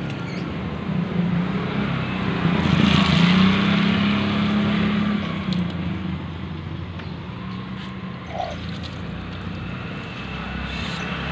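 A motor vehicle passing on a wet street: an engine hum with tyre noise that swells about three seconds in and then fades.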